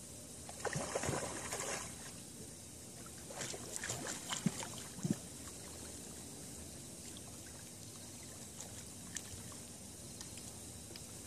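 Water splashing in two short bouts of about a second each, the second ending in two dull knocks.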